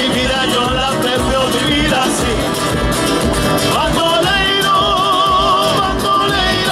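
Live Latin American band music: acoustic guitars and drum keeping a steady beat, with a singer holding long wavering notes.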